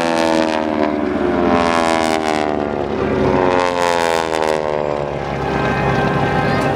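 Propeller-driven aerobatic airplane's engine and propeller running hard in a fly-by, the pitch sliding down as it passes, then sliding down again a couple of seconds later.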